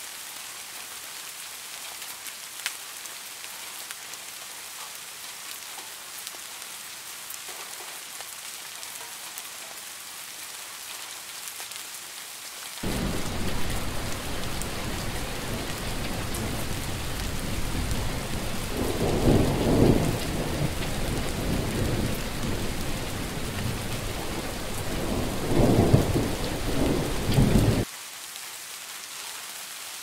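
Steady rain falling. About thirteen seconds in, a much louder stretch of heavy rain with rolling thunder starts suddenly. The thunder swells into two louder rumbles, then cuts off abruptly near the end, leaving the steady rain.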